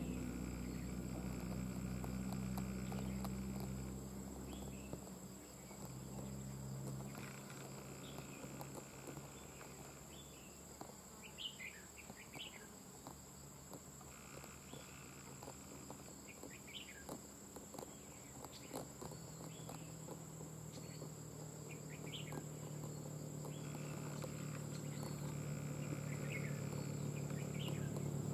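Red-whiskered bulbuls giving short, scattered chirps over a steady high insect drone. A low motor hum fades out in the first few seconds and builds again toward the end.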